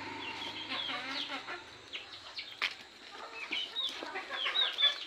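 Desi (village) chickens clucking, with many short high chirps from several birds at once, and one sharp click about two and a half seconds in.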